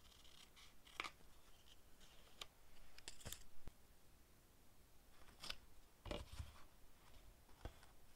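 Small scissors snipping through paper, then soft paper rustles and a few sharp clicks and taps as the cut piece is handled with tweezers, with a duller tap about six seconds in.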